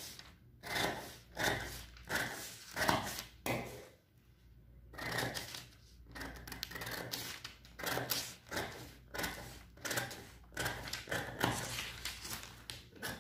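Large dressmaker's shears cutting through brown pattern paper, a series of crisp snips, with a short break about four seconds in before the cutting picks up again faster.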